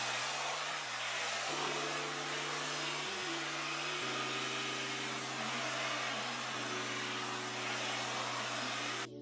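Hot-air brush (blow-dryer brush) blowing a steady hiss of air through the hair, over soft background music chords; the air cuts off suddenly near the end.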